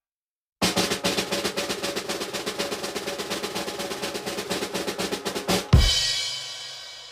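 Drum roll sound effect: a rapid snare drum roll starting about half a second in, ending in a loud bass drum and cymbal crash whose ringing fades away.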